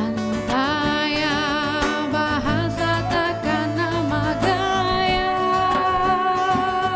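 A woman singing a song in Indonesian to acoustic guitar accompaniment. Her voice wavers with vibrato, and from about halfway through she holds one long note.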